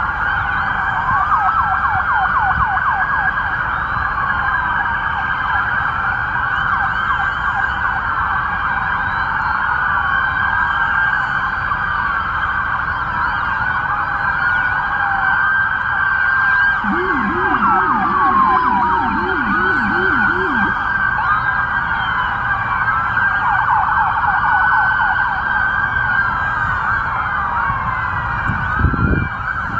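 Many police car sirens sounding at once, their wailing and yelping tones overlapping and rising and falling without a break. For a few seconds in the middle, a lower-pitched siren joins with a fast yelp of about three sweeps a second.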